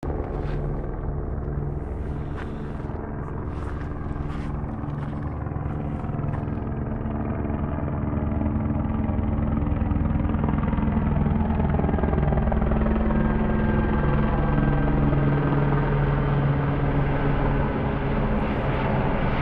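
Helicopter flying overhead, its rotor and engine running steadily, growing louder about eight seconds in and staying loud.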